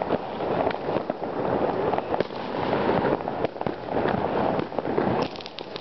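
Fireworks going off in a dense, continuous barrage of many bangs and pops, with a quick cluster of sharp cracks near the end.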